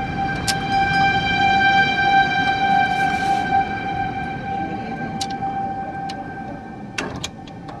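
Outdoor tornado warning siren sounding one steady tone, fading gradually near the end, over a low rumbling background, with a few short clicks.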